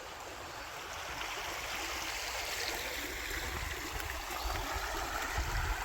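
A small stream of water running steadily, a constant rushing trickle that grows slightly louder over the few seconds.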